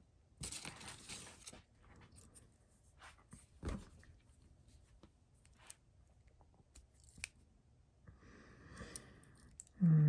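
Handling noise from a large Swiss Army knife multi-tool: a brief rustling brush near the start, then scattered small clicks and taps as the tools are moved, with one louder click about a third of the way in.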